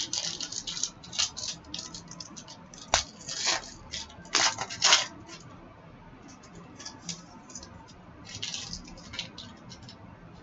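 Trading cards being handled and slid against one another: a run of short scratchy swishes and flicks, thick in the first half and again briefly near the end.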